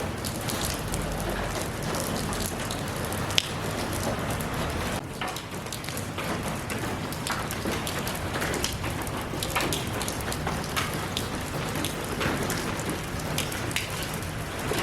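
Steady rain falling, with many individual drops ticking on a surface and one sharper drop click about three and a half seconds in.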